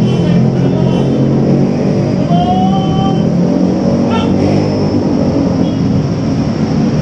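Steady low engine rumble, like nearby motor traffic, with a few short raised voices calling out over it.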